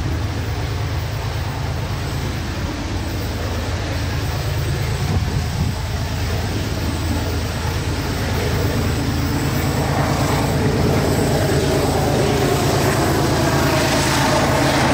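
General Electric DX-class diesel-electric locomotives, led by KiwiRail DXB 5068, working hard as they lug a heavy train round a curve off a speed restriction. The engine thrash is low and steady and grows louder as they approach, and a wavering higher tone joins about ten seconds in.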